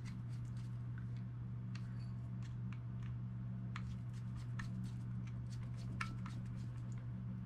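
Small screwdriver tightening the side-cover screws into a Garcia Mitchell 300 spinning reel body: faint, scattered little clicks and ticks of metal on metal, over a steady low hum.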